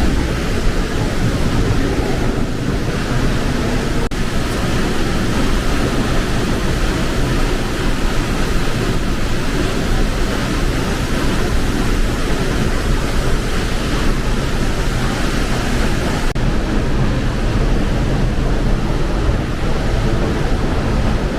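Steady, loud rush of a large waterfall's falling water.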